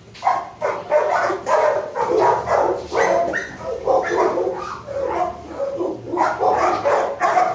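Dogs barking in shelter kennels, rapid barks running into one another almost without a break.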